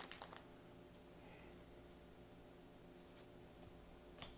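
Near silence with a faint steady hum, broken by a short fading crinkle at the start and a couple of faint ticks of trading cards being handled.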